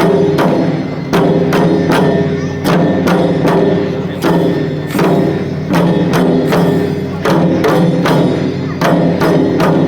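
Shishimai lion-dance drumming: a taiko drum beaten in a steady, repeating rhythm of about two strikes a second, with sustained ringing tones between the strikes.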